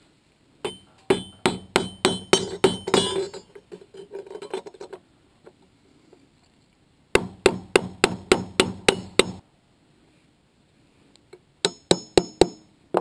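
Claw hammer driving nails through a steel Simpson Strong-Tie H1 hurricane clip into a wooden wall plate. There are three runs of rapid strikes, about four a second, and the short last run has a metallic ring.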